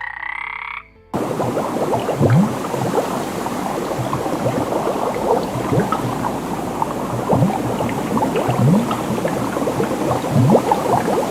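A dense frog chorus: many frogs croaking at once, with short low croaks that sweep upward in pitch over a thick crackle of overlapping calls. It starts abruptly about a second in and cuts off suddenly at the end.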